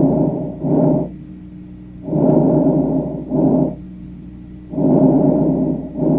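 Lung breath sounds as heard through a stethoscope, repeating roughly every two and a half seconds. Each breath is a longer, louder sound followed after a short pause by a shorter one, with a faint steady hum in between.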